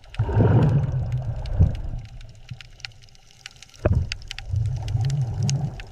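Underwater ambience: low rumbling swells with scattered fine crackling clicks, and a single dull thud about four seconds in.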